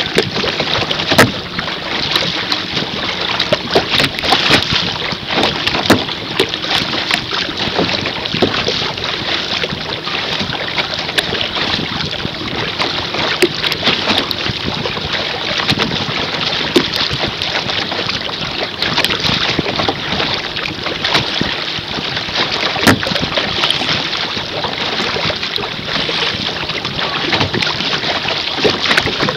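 Water splashing and slapping against a small boat's hull as it moves through choppy water, with wind buffeting the microphone. Many sharp splash ticks sit over a steady rush.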